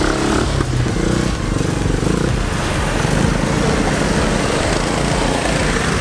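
Small engine of a go-kart-based mini monster truck running steadily as the truck drives.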